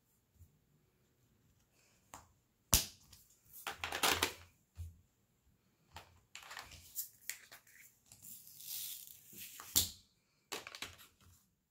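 Diamond painting supplies being handled: small resin drills and plastic tray or packaging giving a sharp tap about three seconds in, then irregular bursts of rattling and crinkling, with another sharp click near the end.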